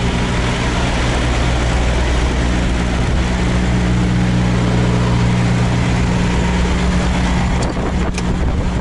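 Semi truck's diesel engine running steadily at low revs, its tone shifting slightly about a third of the way in. Two sharp clicks come near the end.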